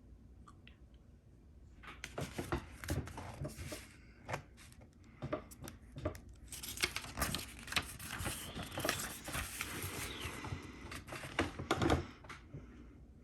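Paper instruction manual being handled, rustling and crinkling with scattered taps and clicks, starting about two seconds in and busiest in the middle.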